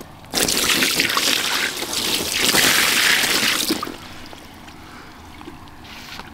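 Water splashing and trickling for about three and a half seconds, then stopping suddenly.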